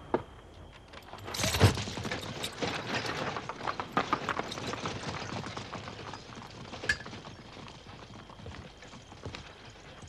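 Horse hooves clip-clopping, starting with a loud knock about a second and a half in and fading away as the horse moves off.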